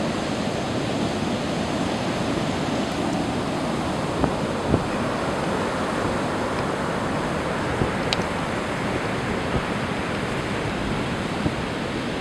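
Heavy storm surf after a hurricane, big sloppy waves breaking and washing up the beach in a continuous rush, with wind rumbling on the microphone and a few brief bumps.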